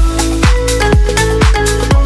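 Electronic dance music with a steady kick drum, about two beats a second, over a sustained bass line.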